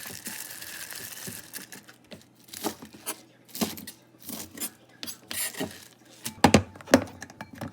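A brief rustle like packaging being torn or crinkled, then a series of clicks and knocks of things being handled in a kitchen, two louder knocks near the end.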